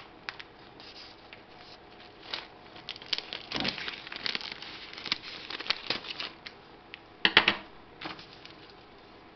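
Plastic Pom-Bar snack bag crinkling as it is handled and cut open with scissors: a string of short crackles and snips, with two sharp crackles about seven seconds in that are the loudest.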